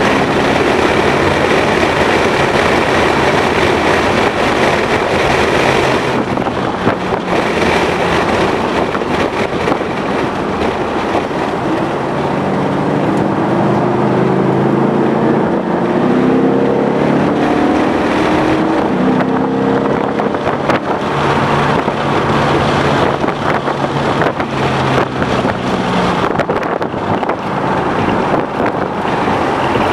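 2011 Ford Mustang GT's 5.0-litre V8 running hard on a race track, its pitch climbing repeatedly through the middle as the car accelerates, under steady wind and road noise.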